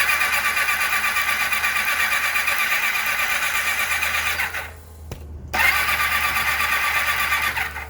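1991 Kawasaki ZXR750 four-cylinder engine spun over on its electric starter without firing, its spark plugs out and injectors unplugged, while the ignition timing is checked with a timing light. It cranks steadily for about four and a half seconds, stops, then cranks again for about two seconds.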